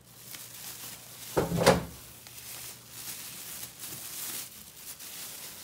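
Plastic wrapping rustling and crinkling as a monitor is handled and slid out of its bag, with one heavier bump about a second and a half in.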